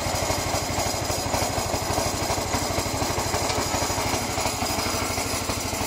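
Giant GT-190 mower's 9 hp single-cylinder petrol engine running steadily with an even, fast pulse.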